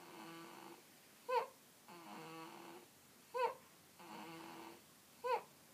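Snoring in a steady rhythm, about one breath every two seconds. Each breath is a drawn-out droning snore followed by a short, louder squeaky whistle, three times in all.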